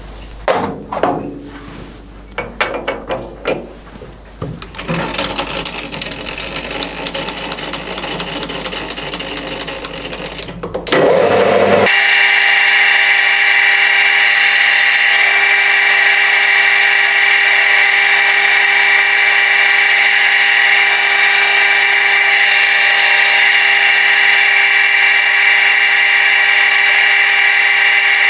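Metal lathe work: for about eleven seconds there are irregular clicks and knocks, then a loud, steady machine whine starts abruptly and holds on, as the lathe runs machining a steel sleeve.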